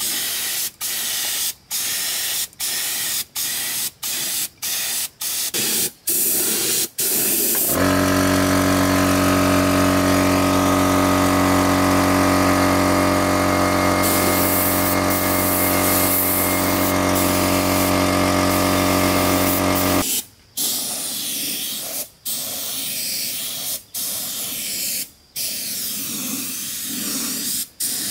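Compressed-air paint spray gun hissing in short bursts as the trigger is pulled and released. About eight seconds in, a small portable air compressor switches on and runs with a steady hum for about twelve seconds, refilling its tank, then cuts off abruptly while the spray bursts go on.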